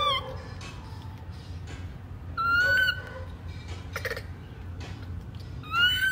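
Baby macaque crying in high, squealing calls: three of them, a short one at the start, a longer one about two and a half seconds in, and a rising one near the end. A brief noise comes about four seconds in.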